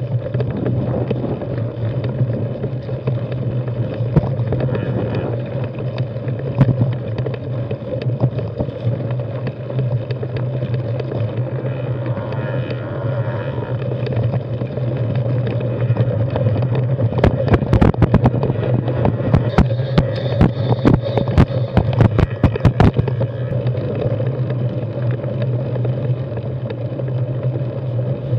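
Mountain bike on plus-size tyres rolling over a rocky dirt trail: steady tyre rumble and hum with wind on the camera microphone. Over the middle of the run there is a flurry of sharp rattles and clacks as the bike bounces over rocks.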